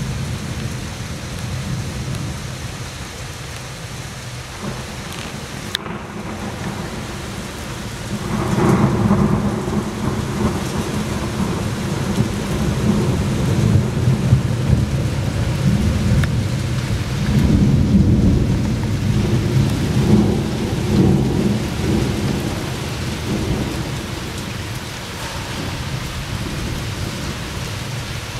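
Rain hissing steadily under a long roll of thunder. The rumble swells about eight seconds in, swells again about two-thirds of the way through, then fades near the end.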